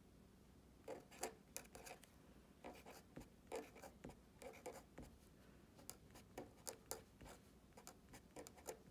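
Green felt-tip pen writing on a paper worksheet: faint, short scratching strokes in quick succession, starting about a second in.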